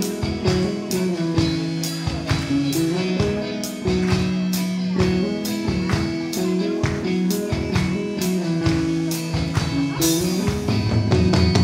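Live rock band playing: electric guitars over a drum kit keeping a steady beat. The band gets louder and busier about ten seconds in.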